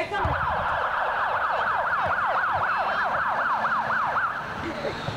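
Electronic siren in a fast yelp, its pitch sweeping up and down about three times a second, stopping a little before the end.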